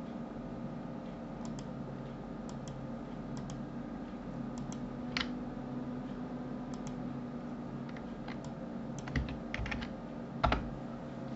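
Computer keyboard and mouse clicks: scattered single keystrokes and clicks, then a quicker run of keystrokes ending in one louder key strike near the end, over a steady low hum.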